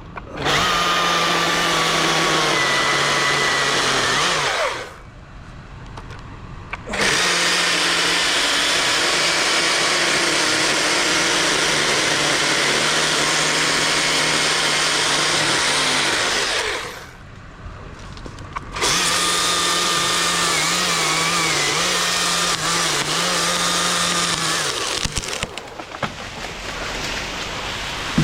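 Gas chainsaw run at full throttle in three long stretches of several seconds each, dropping off briefly between them. In the last stretch the pitch wavers as the saw loads in the cut.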